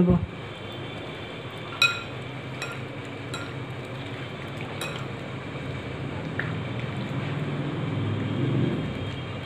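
A hand squishing and kneading raw chicken pieces in a wet yogurt marinade in a glass bowl, with a few light clinks against the glass between about two and five seconds in.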